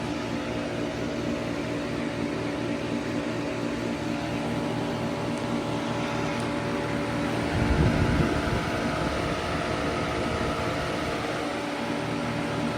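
Lasko electric fan unit, treated as a home heat pump, running steadily: a fan hum with a motor's steady tones. A brief low rumble comes about eight seconds in.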